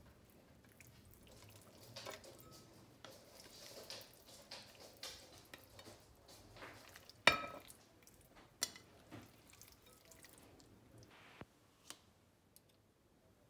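Raw chicken pieces being handled and laid into a glass bowl of cut potatoes: soft wet squishes and scattered small clicks. There is one sharp knock about seven seconds in and a smaller one a second later, like a plate or fingers striking the glass bowl.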